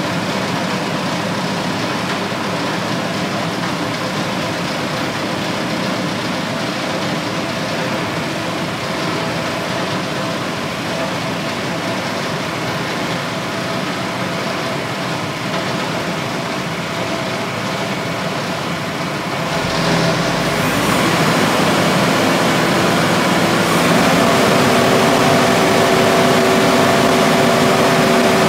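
Walk-behind concrete floor saw running steadily, then growing louder and harsher about two-thirds of the way through as its blade cuts a trench into the concrete floor, with a steady whine joining in near the end.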